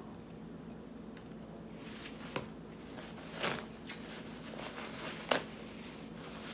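Chewing, then a paper towel crinkling and rustling as it is handled and wiped across the mouth, with several sharp clicks, the loudest a little over five seconds in. A steady low hum lies underneath.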